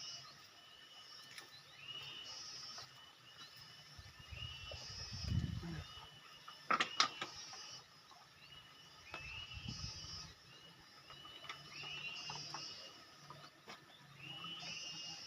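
A high-pitched animal call repeats steadily, about once every second and a half. Two low rumbles come and go, and a sharp clatter near the middle is the loudest sound.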